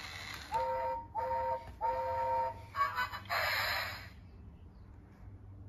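Trackmaster motorised toy engine's built-in sound effect: three electronic whistle toots, the last one longest, followed by a short hiss of steam.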